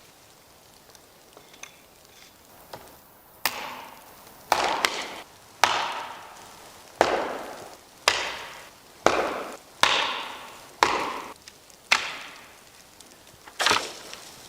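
Wood being chopped: about ten sharp strikes roughly a second apart, starting about three seconds in, each fading quickly.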